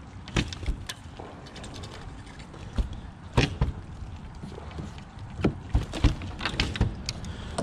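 Irregular knocks and clicks of fishing gear being handled aboard a plastic kayak: a rod, reel and landing net bumping against the hull, with a few louder knocks near the middle and later on.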